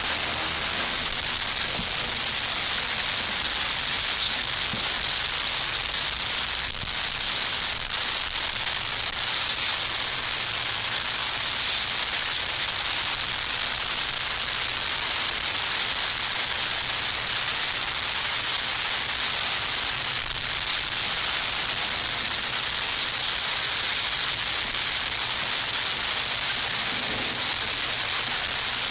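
Small wood fire of twigs burning in a camp stove: a steady hiss with a few scattered crackles.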